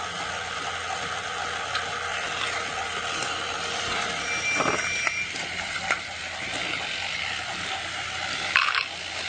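Battery-powered toy train running along plastic track: a steady motor whir with scattered clicks. A brief high beep comes about four and a half seconds in, and a short louder rattle near the end.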